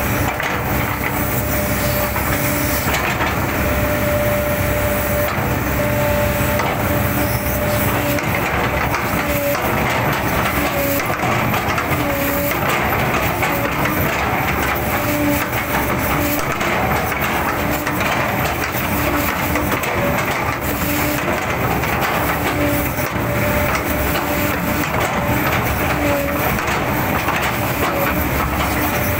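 A 20-tonne class hydraulic excavator running under load, its hydraulics whining in short, repeated spells while the bucket chops into an oil palm trunk with crunching, splitting knocks of wood.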